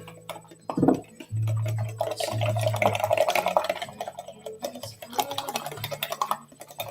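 A straw stirring milk and cocoa powder in a cup: a rapid run of light clicks and scrapes against the cup's sides, busiest in the middle and easing off near the end.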